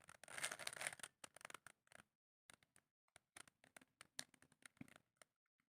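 Rubik's cube being turned by hand: quick plastic clicking and scraping as its layers are twisted, a dense run in the first two seconds, then scattered clicks that stop about five seconds in.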